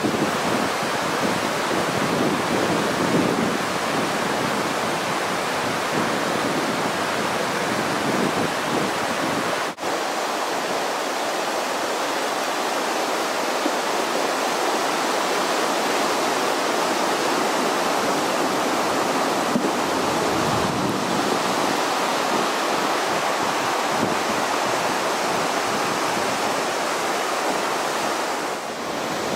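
Floodwater rushing, a steady loud roar of churning water. A brief dip about ten seconds in, then the rushing continues.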